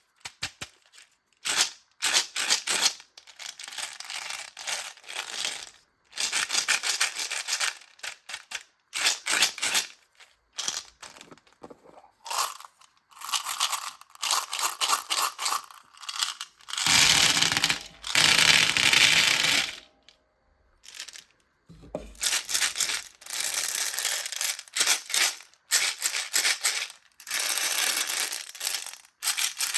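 Micro beads pouring and sliding in soft, crinkly rushes. They come in short runs broken by brief pauses, with one longer, fuller rush a little past halfway.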